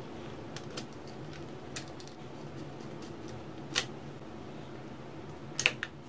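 Light clicks and taps of crimped wire terminals being handled at a relay socket, then a sharp double click near the end as the Omron MY4N relay's 24 V DC coil is energised and its armature pulls in, all over a steady low hum.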